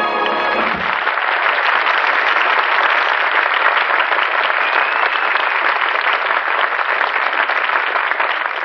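Live studio audience applauding steadily. The band's closing brass chord ends underneath it within the first second.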